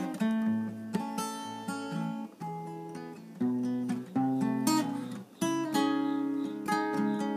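Acoustic guitar playing an instrumental break in a song, chords struck and left ringing, changing about once a second.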